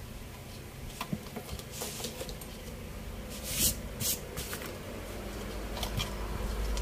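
Hands handling a TV circuit board and multimeter test leads on a workbench: scattered light clicks and taps, then two short scraping rustles about three and a half and four seconds in as the board is moved.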